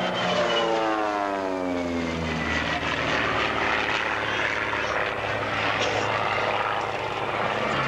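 SIAI-Marchetti SF-260 aerobatic plane passing close by, its piston engine and propeller sound falling in pitch over the first two seconds or so as it goes past, then running on steadily as it flies away.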